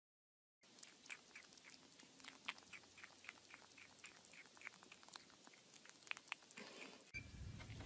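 Kitten gnawing on the rim of an orange plastic lid: a string of faint, small clicks of teeth on plastic, three or four a second. Near the end a low hum comes in.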